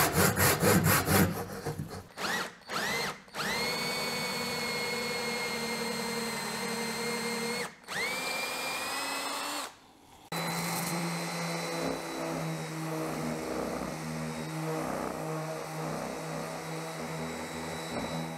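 A handsaw finishes cutting through a wooden workpiece with quick back-and-forth strokes. A power drill is then triggered a few times, its whine rising as it spins up, and runs for about four seconds and then two more while boring a hole in the wood. After a short pause a random orbital sander runs steadily for the last eight seconds, sanding the wooden piece.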